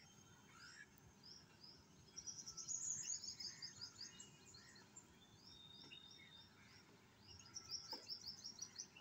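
Faint chirping of small birds: many short, high calls repeated one after another, thickest into a quick run of notes two to four seconds in, over a low background hiss.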